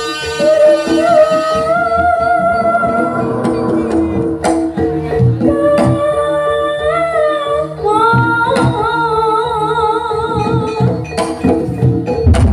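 Javanese jaranan music: a voice sings a wavering melody over held tones and a steady drum beat.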